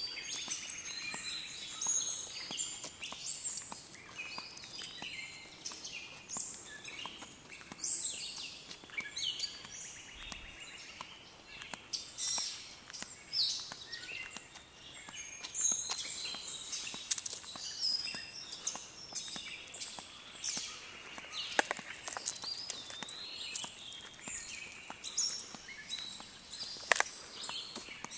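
Several wild birds chirping and singing over one another without a break. Two sharp clicks, one about two-thirds of the way through and a louder one near the end, cut through the birdsong.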